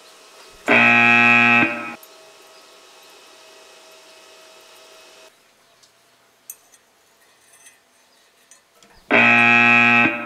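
Two identical buzzing electronic tones, each about a second long and about eight seconds apart, with a faint steady hum between them.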